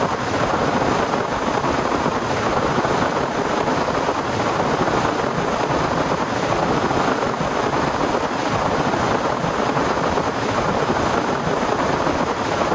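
Torrential rain pouring without let-up, a loud, dense, even hiss.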